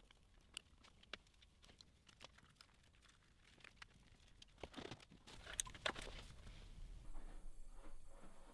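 Faint clicks and rustling of small-parts handling: a screwdriver turning in plastic screw terminals and wires being fitted, growing louder with handling noise about halfway through.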